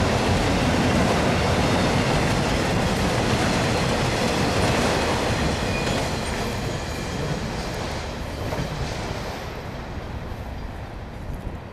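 Enclosed autorack freight cars at the tail of a freight train rolling past, their wheels clattering on the rails. The sound fades away steadily after about halfway as the last car passes and the train recedes.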